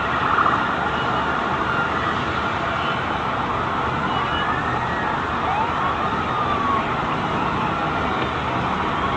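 Several emergency-vehicle sirens wailing and overlapping, their pitches sliding up and down, over a steady rush of city street noise.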